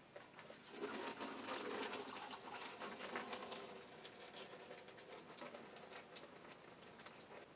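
Parkerizing solution being poured from a stainless steel bowl through a funnel into a plastic jug: a faint trickling and splashing. It builds about a second in and tapers off toward the end.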